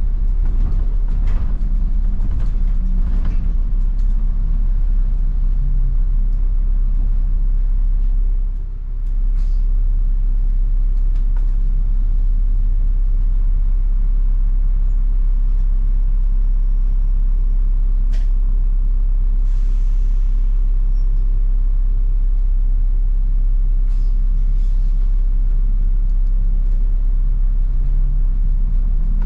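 Steady low rumble of a New Routemaster diesel-electric hybrid double-decker bus driving, heard from inside on the upper deck, with a few faint clicks.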